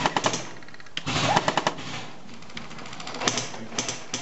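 Airsoft guns firing several short bursts of rapid shots.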